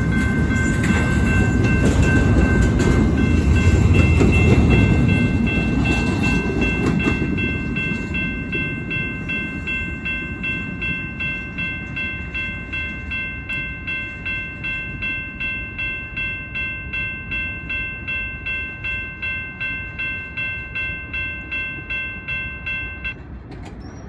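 The last cars of a double-stack intermodal freight train rumble over a grade crossing, loudest in the first few seconds and then fading. The crossing's warning bell keeps ringing steadily, about two strokes a second, and stops suddenly near the end once the train has cleared.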